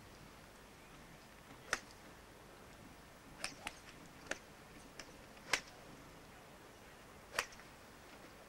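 Golf clubs striking balls on a practice tee: sharp clicks, three louder strikes and several fainter ones between them, over a low tape hiss.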